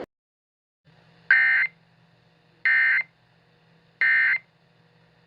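Emergency Alert System end-of-message (EOM) signal: three short bursts of screechy SAME digital data tones, each about a third of a second long and about 1.4 seconds apart, marking the end of the alert. A faint low hum runs underneath.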